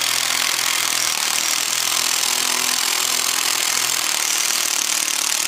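Ridgid cordless impact driver running steadily under load as it drives a Tapcon concrete screw through a steel post bracket's base plate into concrete, tightening it down.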